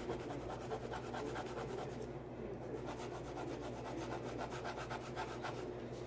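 Green coloured pencil shading on paper, scratching in rapid back-and-forth strokes, with a brief pause about two seconds in and stopping just before the end.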